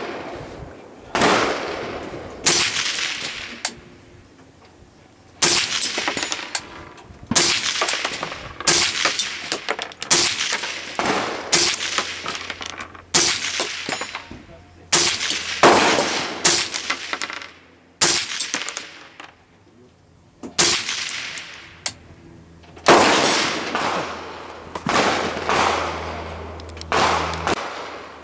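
Rifle fired over and over at downrange targets: about twenty sharp shots at irregular spacing, some only about a second apart, each trailing off over a second or so.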